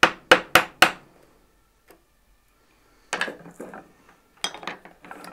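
Four quick blows on a woodworking chisel in the first second, chopping out the waste of a dovetail joint. They are followed by a few quieter knocks and short scrapes of the chisel in the wood.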